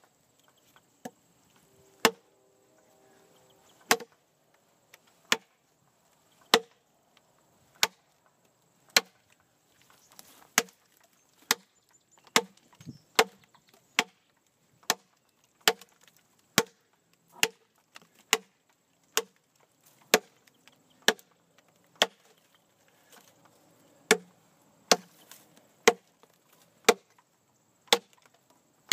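Large camp knife with a 13-inch ATS-34 steel blade chopping into a log, about one sharp strike a second.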